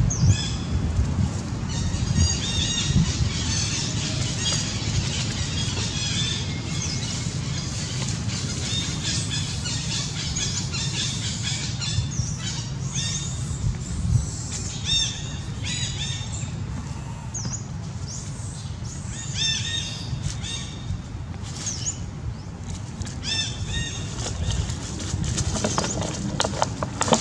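Repeated short, high-pitched squeaking calls from small animals, coming in quick bouts all through, over a steady low rumble.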